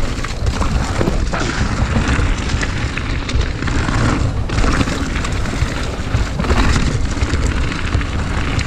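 Mountain bike descending rough dirt singletrack: wind buffets the action camera's microphone in a heavy, steady rumble, over tyre noise on the trail and frequent sharp clicks and rattles from the bike.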